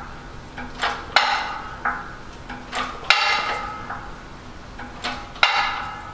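Harbor Freight 20-ton hydraulic shop press being hand-pumped: a sharp metallic clank with a short ring about every two seconds, three times, each with softer clicks just before it, as the bottle jack drives a dimple die into sheet steel.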